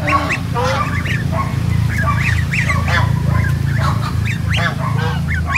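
Geese honking over and over, short calls about three a second, over a steady low hum.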